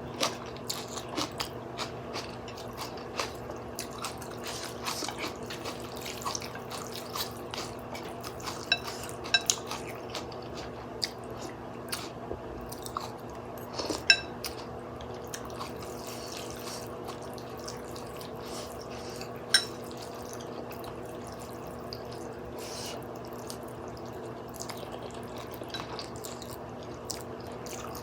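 Close-up wet eating sounds of glass-noodle soup: soft mouth clicks, chewing and slurping of liquid, with a few louder ringing clicks about nine, fourteen and twenty seconds in. A faint steady hum runs underneath.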